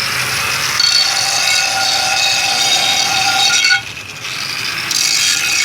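Electric grinder grinding the surface of an old frying pan, a loud high-pitched whine that dips briefly partway through, comes back, and cuts off suddenly at the end.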